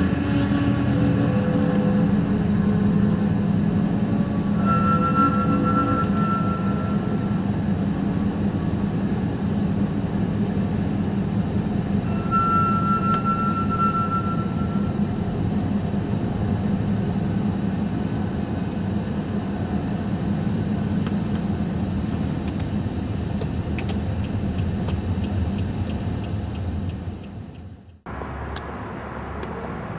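Steady rumble of a moving vehicle heard from inside, with a short high tone sounding twice, about five seconds in and again about twelve seconds in. Near the end the sound cuts off abruptly and comes back quieter.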